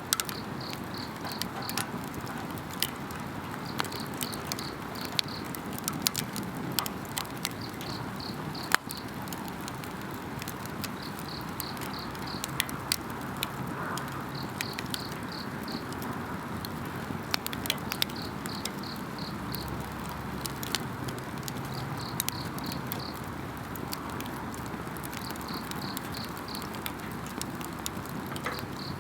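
Wood campfire crackling and popping with sharp irregular snaps, one louder pop about nine seconds in, over a steady hiss of the flames. An insect chirps in short high trains of four or five pulses, repeating every two to three seconds.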